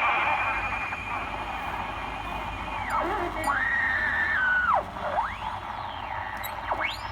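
A 1942 Westinghouse M108 valve radio's speaker giving hiss and a steady high whistle, then whistles that swoop down and up in pitch several times as its tuning dial is turned across the band.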